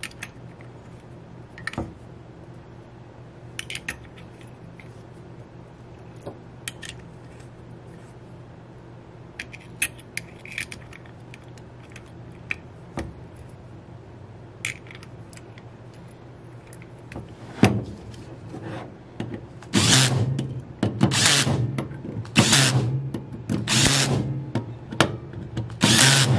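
Light metallic clicks of small screws being set by hand, then a power screwdriver running in a series of short bursts in the second half, driving screws into an aluminium automatic-transmission valve body.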